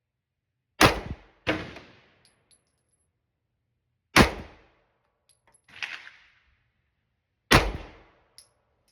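Handgun firing slow, unevenly spaced single shots, about five of them, each a sharp crack with a short ringing tail. Three are louder than the rest.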